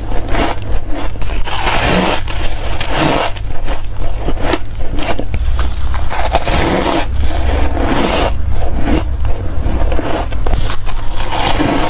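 Ice being bitten and chewed: continuous, dense crunching made of many irregular sharp cracks.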